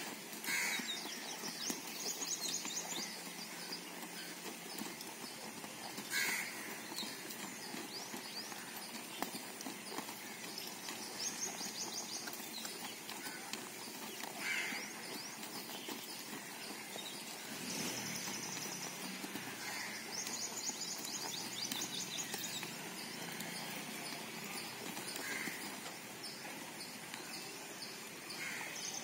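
A horse's hooves cantering on soft dirt.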